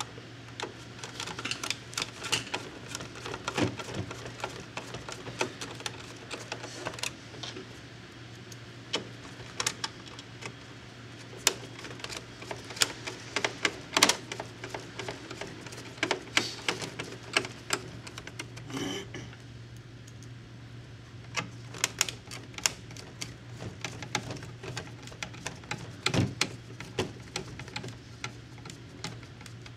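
Irregular clicks and taps of a screwdriver driving screws into the bezel of a Coinco Mag bill validator, with the metal bezel and plastic housing knocking as they are handled. A steady low hum runs underneath.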